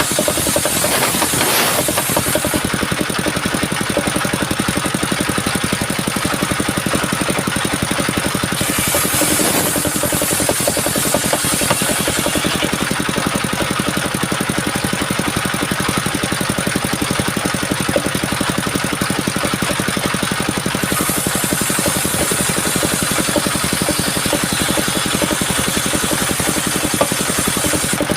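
The engine of a homemade mobile circular-saw sawmill running steadily, with a high hiss that rises and falls away three times.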